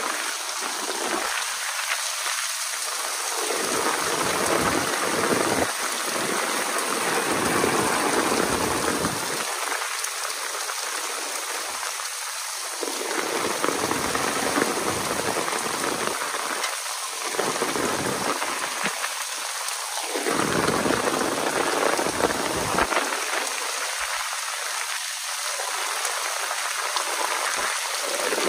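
Heavy downpour: a dense, steady hiss of rain pouring down and striking the surfaces around, with a low rumble that comes and goes beneath it.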